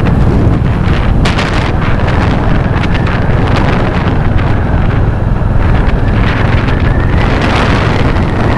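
Wind rushing over the microphone of a moving Royal Enfield Hunter 350 motorcycle, a loud, steady rumble, with the bike's single-cylinder engine running underneath.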